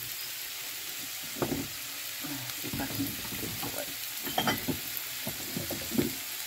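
Vegetables and meat sizzling in a cast-iron skillet, a steady frying hiss. From about a second and a half in, a slotted spoon stirring them makes short, irregular scrapes and knocks.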